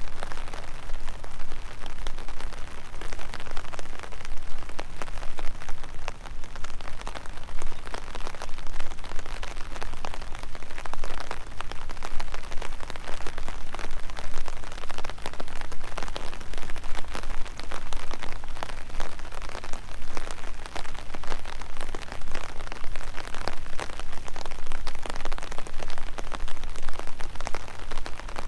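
Steady rain falling, a dense, even patter of individual drops that keeps on without a break.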